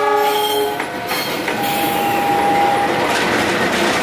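KAI CC206 diesel-electric locomotive blowing a short multi-tone horn chord for under a second. It is followed by the running noise of the passing train, with a steady high tone for about a second in the middle.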